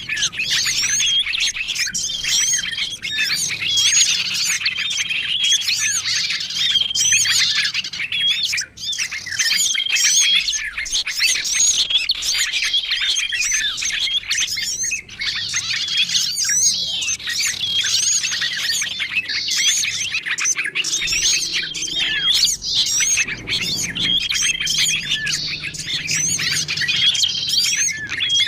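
A dense chorus of small songbirds chirping, chattering and squawking, with a short level whistle note recurring every few seconds. It is a bird-lure recording, a mix of small-bird calls played to draw wild small birds in.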